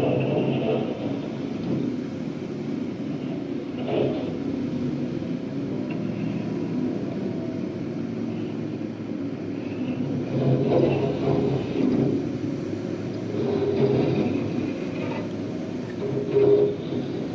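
Heavy snow-removal machinery running at work: a steady diesel engine rumble with a few louder knocks and scrapes along the way.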